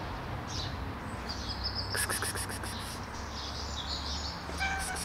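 Small birds chirping: brief high chirps and two quick trills of rapid high ticks, one about two seconds in and one near the end, over a steady low background hum.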